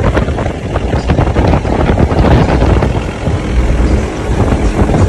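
Modified open-top jeep on oversized off-road tyres driving, its engine running loudly and steadily with most of the sound in the lows.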